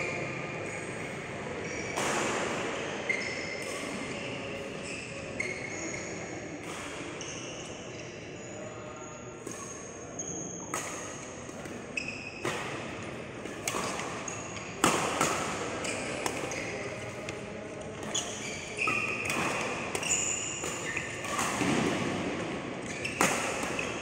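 Badminton rally: rackets striking the shuttlecock in sharp cracks at irregular intervals, with court shoes squeaking briefly and feet thudding on the court mat.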